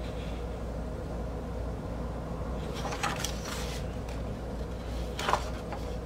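Large paper record insert handled, rustling briefly about three seconds in and again a little after five seconds, over a steady low background hum.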